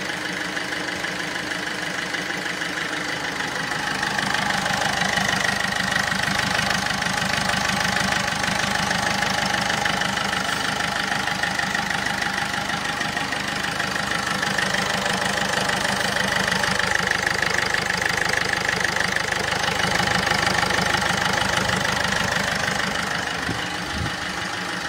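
Ford Figo's Duratorq TDCi diesel engine idling steadily, heard with the bonnet open.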